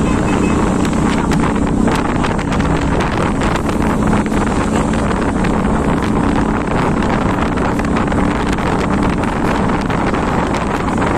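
Motorcycle riding along with its engine running steadily, heavily covered by wind buffeting on the phone's microphone.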